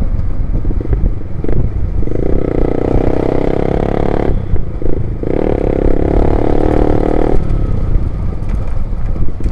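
Loud motorcycle exhaust while riding, over a heavy low rumble of wind on the microphone. The engine note holds strong for about two seconds, drops away briefly as the throttle closes, then comes back for another two seconds.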